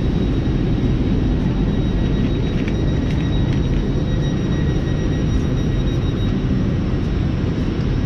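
Steady low rumble and hum of LNER Azuma trains standing at the platforms under a large station roof, with a faint high whine that stops about three-quarters of the way through.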